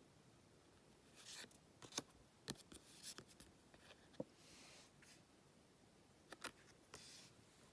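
Faint handling of a stack of Panini football stickers: soft papery rustles and scattered light clicks as the stickers are shuffled from front to back, the sharpest tick about two seconds in.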